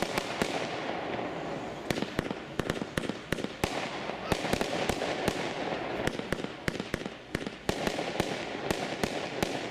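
'Pure Power' fireworks battery firing shot after shot: a rapid, irregular string of sharp bangs and pops over a continuous rushing noise of the bursts.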